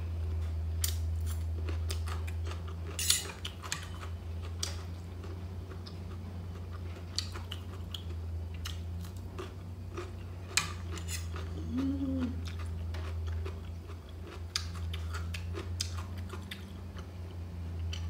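A person chewing mouthfuls of stir-fried noodles, with scattered light clicks and scrapes of a metal fork and spoon on a plate, over a steady low hum.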